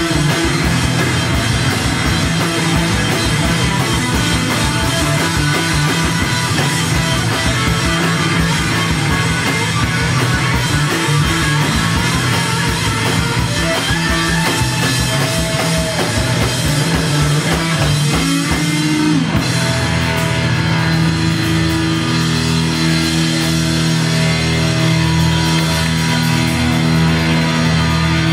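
A live rock band plays loudly with electric guitar, bass and drums. About two-thirds of the way through, the steady drumming thins out and held guitar chords carry on.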